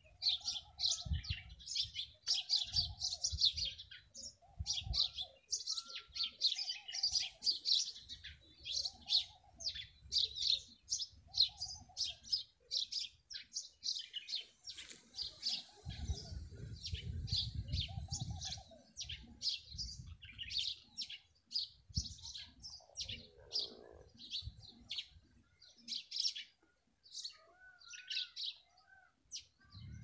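Birds chirping: a dense run of quick, high chirps from small birds, with a lower two-note call repeating about every second and a half. Bouts of low rumble come and go, the longest about halfway through.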